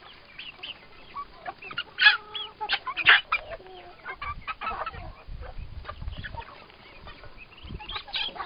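A flock of young chickens clucking and cheeping, many short overlapping calls, with two louder squawks about two and three seconds in.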